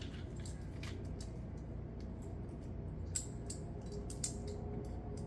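Scattered light clicks of small screws being handled and picked through by hand, over a steady low hum.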